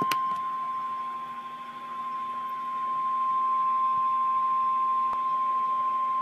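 Emergency alert attention tone: a single steady high-pitched beep held unbroken, the NOAA Weather Radio warning alarm that signals a warning bulletin is about to be read.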